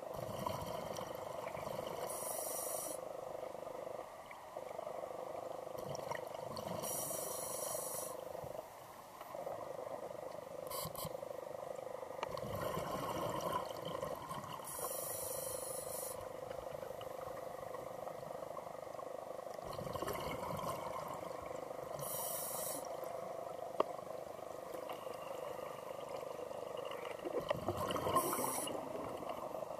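A scuba diver breathing through a regulator underwater: a short rush of air about every five to seven seconds, five breaths in all, over a steady underwater rumble.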